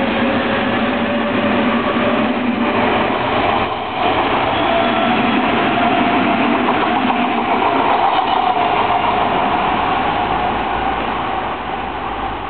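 Odakyu Line electric train running past close by: a loud, steady rolling rush of wheels on rail that eases off near the end.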